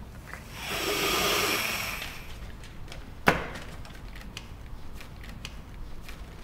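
A rushing hiss that swells and fades over about a second and a half, then a single sharp knock, with faint scattered clicks throughout.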